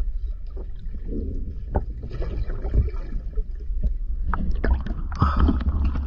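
Underwater noise through a diver's camera housing: a steady low rumble with scattered crackles and bubbling. About five seconds in, the camera breaks the surface and the sound turns brighter and louder with splashing water.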